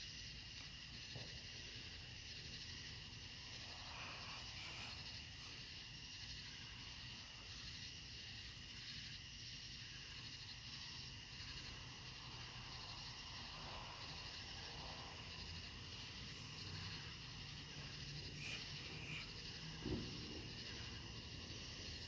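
Night insects chirring steadily, with a high pulsing chirp about twice a second over a constant high hum. There is a single soft thump near the end.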